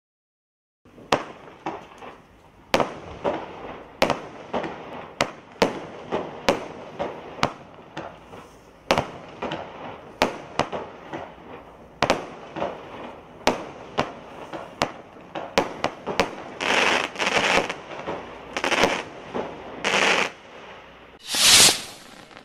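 Evolution Fireworks 'Detonation' 12-shot barrage cake firing: a rapid series of sharp bangs, each trailed by crackling hiss, with denser crackling bursts late on. Near the end comes one short, loud rushing burst, the loudest sound.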